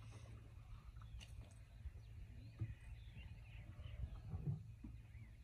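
Faint outdoor ambience: a low steady rumble with faint bird chirps from about two seconds in.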